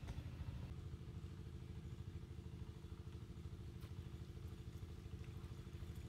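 A faint, steady engine hum, a low rumble with a constant drone above it, from a motor running unseen at a distance.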